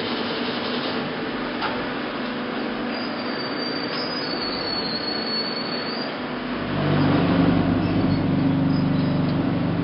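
Machinery of a concrete block production line running with a steady mechanical noise. About six and a half seconds in, a louder, steady hum with several steady tones sets in and holds for about three seconds before easing off.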